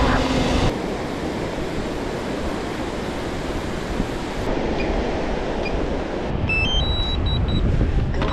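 Wind buffeting the microphone over surf breaking on a beach. The steady propeller hum of a quadcopter drone stops abruptly just under a second in. Near the end comes a quick run of short electronic beeps rising in pitch, then several short high beeps at one pitch, from the drone's remote controller as it is sent to return to home.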